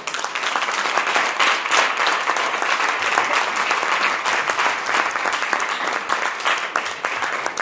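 Audience applauding, many hands clapping at once, breaking out suddenly.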